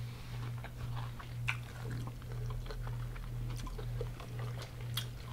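Close-up chewing and biting of crunchy deep-fried seafood, a scatter of small crackles and mouth clicks, over a steady low hum that pulses about twice a second.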